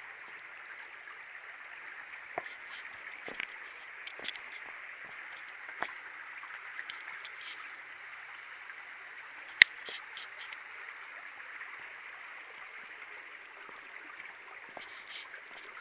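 Steady rushing of a nearby creek, with irregular footsteps scuffing and clicking on a rocky trail and one sharp click about ten seconds in.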